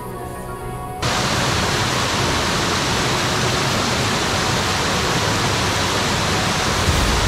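Background music for about the first second, then cut off abruptly by the loud, steady rush of a mountain stream cascading over rocks.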